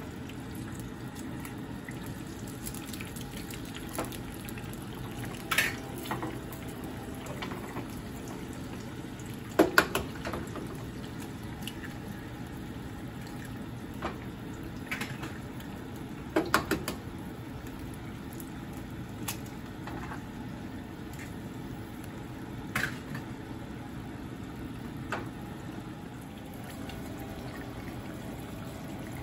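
Eggs frying in hot oil in a nonstick frying pan: a steady sizzle, broken a few times by short sharp clicks and crackles as more eggs are cracked into the pan.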